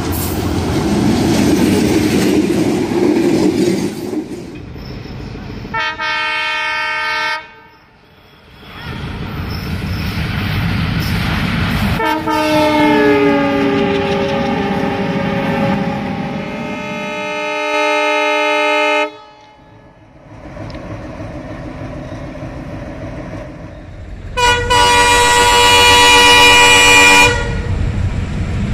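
Bangladesh Railway WDM-3A diesel-electric locomotives sounding their horns in three blasts from separate trains: a short one, a long one that dips slightly in pitch as the train passes, and another near the end. Between the blasts the locomotives' engines and the passing coaches rumble on the rails.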